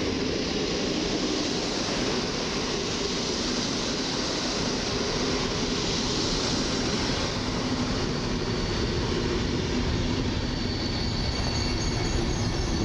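PKP Intercity passenger coaches rolling past: a steady rumble of wheels on the rails, with a faint high wheel squeal setting in near the end.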